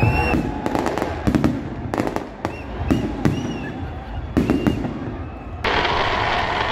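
Aerial fireworks going off overhead: repeated sharp bangs and crackling of bursting shells, with a few short whistles. About five and a half seconds in, a louder steady wash of crowd noise sets in under the bangs.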